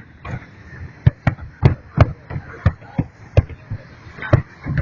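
Fireworks display: a rapid, irregular string of sharp bangs, about three a second.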